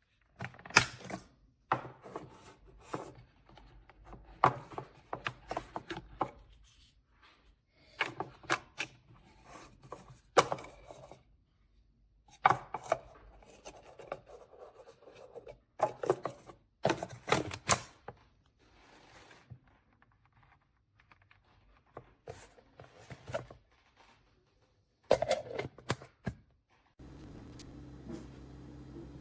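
Plastic parts of a burr coffee grinder being handled, giving irregular clusters of clicks, knocks and rubbing with short pauses between them. Near the end a steady low hum sets in.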